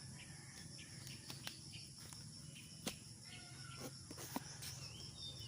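Crickets trilling steadily and faintly, with scattered short bird chirps and a few sharp clicks over a low steady hum.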